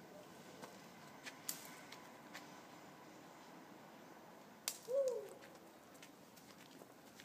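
A few faint clicks, then a sharp tap about four and a half seconds in as the light-up toy comes down onto the road, followed at once by a short hoot that rises then falls in pitch.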